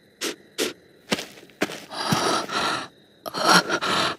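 A character's heavy breathing, voice-acted: four quick short breaths, then longer drawn-out breaths in the second half.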